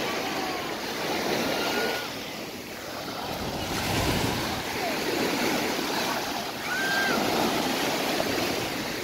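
Sea surf: waves breaking and washing up the beach, the rush swelling and fading over a few seconds at a time.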